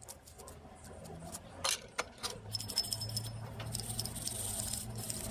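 Small metal parts of an automatic freewheeling hub clicking and rattling against each other as they are handled, with a couple of sharper clicks a little under two seconds in. A low hum and a steady hiss come up about halfway through.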